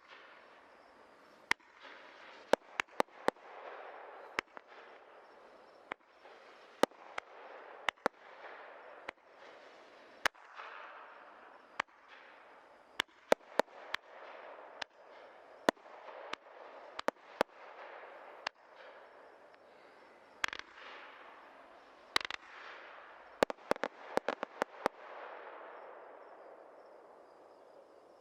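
Low-noise fireworks cake of 100 tubes of 37 mm firing: sharp pops at irregular intervals over a continuous crackling hiss of the effects. The pops stop and the hiss dies away near the end.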